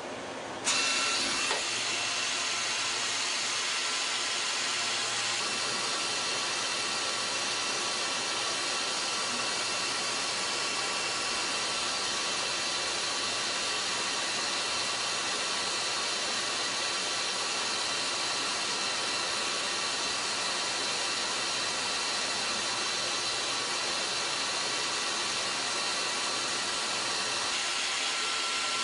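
Citizen Cincom M32 VIII Swiss-type CNC lathe running and cutting metal: a steady hiss with a faint high whine that sets in abruptly about a second in.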